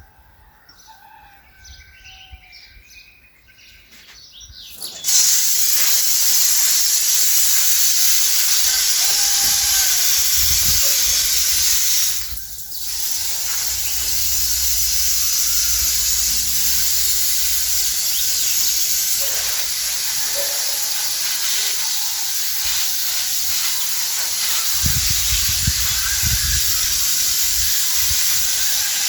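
Faint bird chirps, then about five seconds in a loud, steady hiss starts suddenly and carries on, dipping briefly partway through.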